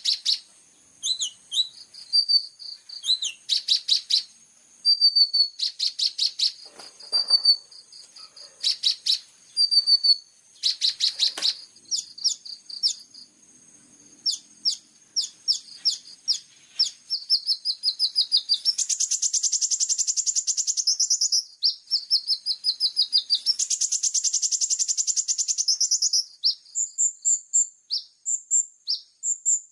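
Kolibri ninja sunbird singing a fast, high-pitched song of sharp chirps and short whistled notes, twice breaking into a long rapid trill, the mixed 'isian' phrases bird-keepers use as a training recording.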